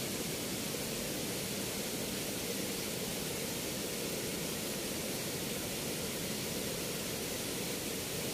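Steady, even rush of water pouring through the open sluice gates of a river weir.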